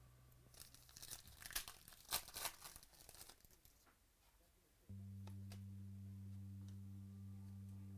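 Foil trading-card pack wrapper being torn open and crinkled: a quick run of tearing and crackling that stops after about three seconds. About five seconds in, a steady low hum comes on abruptly.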